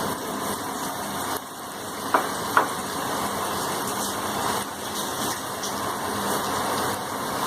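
Battered whole spinach leaves deep-frying in hot oil, sizzling steadily, with two short clinks a little after two seconds in.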